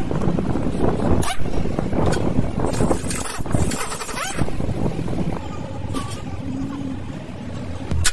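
Metal clatter and knocks of hand tools working on a car's front suspension, ending with a loud hammer blow on the control arm's ball joint.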